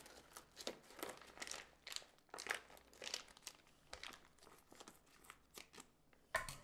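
Plastic sous vide bag crinkling as it is cut open with kitchen scissors and handled, in a string of faint, short crinkles and rustles. A louder knock comes near the end.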